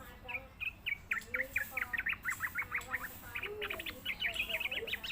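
Yellow-vented bulbul (trucukan) calling in a rapid chattering series of short, sharp notes, about eight a second, in two runs with a brief break a little past the middle. This is a lure call used to draw and tutor bulbuls.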